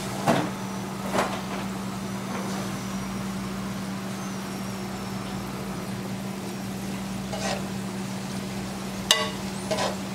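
Sliced onions frying in hot oil, a steady sizzle as they brown. A metal slotted spatula clinks and scrapes against the pan a few times: twice in the first second or so, once in the middle, and twice close together near the end.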